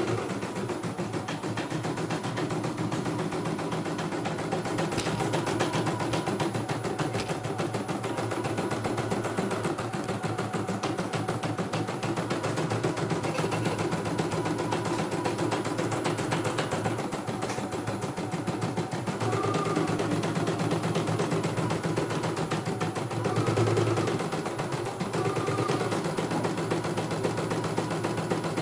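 CNY E900 computerised embroidery machine stitching, its needle going up and down in a fast, steady clatter, with a motor hum that shifts in pitch now and then as the hoop moves.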